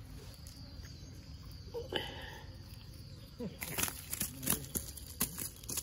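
Steady high insect chirring, crickets or similar, with a brief pitched call or voice-like sound about two seconds in. Near the end comes a run of sharp clicks and knocks.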